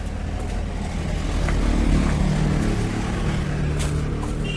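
A motor vehicle's engine running, growing louder to a peak about halfway through and then fading a little, as a vehicle passing by would.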